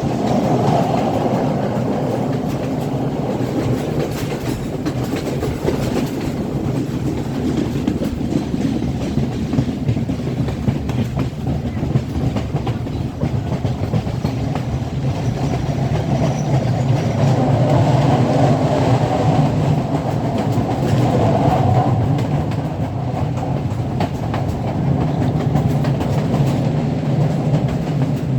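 Moving passenger train: steady rumble of the carriages with wheels clattering over the rail joints, getting louder for a few seconds past the middle.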